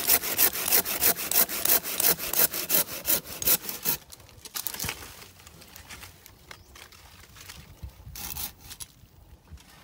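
Hand saw cutting through wood in quick, even strokes, about four a second, stopping about four seconds in. After that come only faint, scattered scrapes, one a little louder near the end.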